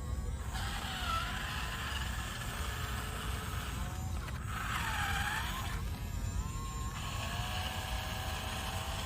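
Small electric motors and plastic gears of a remote-control toy excavator whirring in spurts, the whine rising and falling in pitch as it speeds up and slows down.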